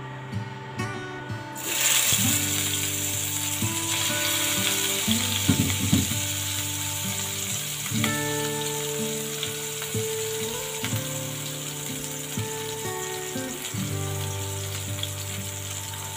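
Fish steaks frying in hot oil in a pan: a dense sizzle starts suddenly about two seconds in, as the pieces go into the oil, then carries on steadily and eases slightly. Background music plays underneath.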